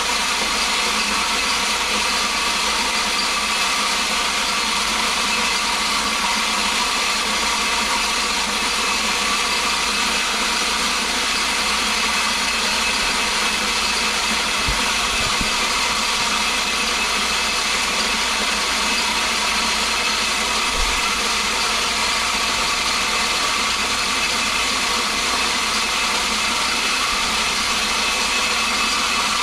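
Feed grinder running steadily while grinding corn into cracked corn: a constant motor hum with several steady tones over grinding noise.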